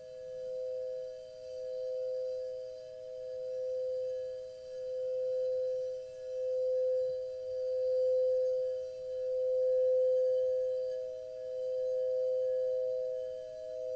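Sustained ringing meditation tone: two steady, close pitches with faint higher overtones, swelling and fading in slow, uneven pulses.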